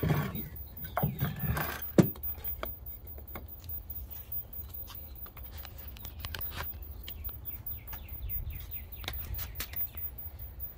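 Thumps and a sharp knock, loudest about two seconds in, as wooden blocks are set on the concrete under the golf cart's hitch. Later, a bird gives a quick run of falling chirps in the background over a low steady rumble.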